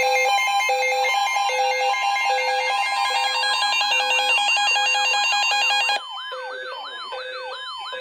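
Several NOAA weather alert radios sounding their alert alarms at once for a blizzard warning: overlapping electronic beeps of different pitches and rhythms, joined by a warbling siren-like tone. About six seconds in the loudest beeping cuts off, leaving the warble and a beep repeating a little faster than once a second.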